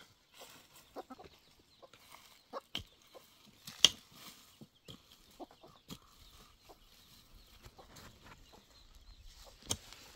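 Irregular blows of a hand hoe chopping into stony soil, the loudest about four seconds in, with chickens clucking between the strokes.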